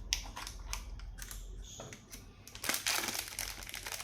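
Chocolate wrappers being handled and opened: scattered crisp clicks and crackles, turning into a denser, louder crinkling of the packaging near the end.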